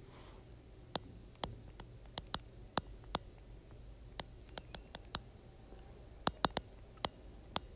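Stylus tip tapping and clicking on a tablet's glass screen during handwriting: a string of sharp, irregular clicks, several close together about six seconds in.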